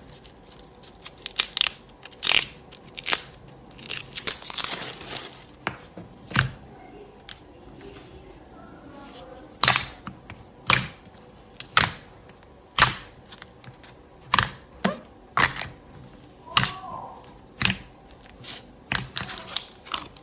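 Slime being worked by hand, giving a run of sharp pops and clicks: dense and crackly for the first few seconds, then single pops about once a second.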